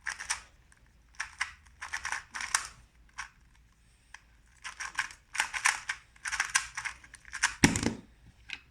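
Plastic 2x2 speed cube being turned fast by hand: bursts of rapid clicking and clattering turns with short pauses between, then a loud thump near the end.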